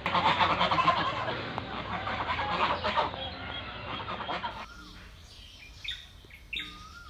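Domestic fowl clucking and calling, busy and loud for about four and a half seconds. After a sudden drop it turns quieter, with short, separate bird calls and chirps and a brief rising whistle near the end.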